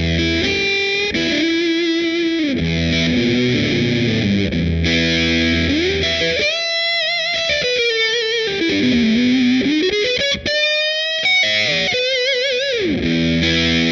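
Electric guitar played through a Fender Blues Deluxe Reissue tube amp fitted with a Celestion Creamback G12M-65 speaker, with the overdrive at max gain. It plays held, distorted chords, then a single-note lead with string bends and wide vibrato, and ends on a sustained chord.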